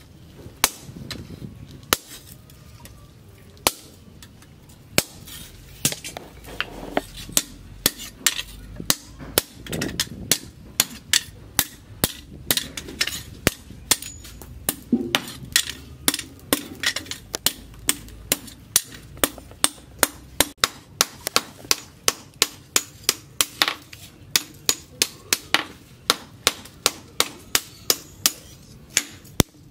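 Blacksmith's hand hammer forging a steel machete blank cut from a plough disc, each blow a sharp metallic ring. The blows are sparse and uneven at first, then settle midway into a steady run of about three a second.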